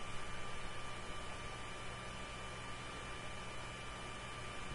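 Steady electrical mains hum with a faint high-pitched whine, and no other distinct sound.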